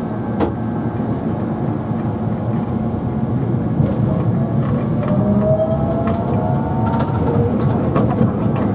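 Nagasaki Electric Tramway 3000-series tram running on street track, heard from inside the car: a steady rumble with occasional sharp clicks. From about halfway a motor whine rises slowly in pitch as the tram gathers speed.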